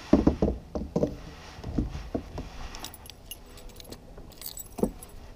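Fishing gear being handled in a kayak: irregular light clicks and knocks, a quick run of them in the first couple of seconds and a few more near the end.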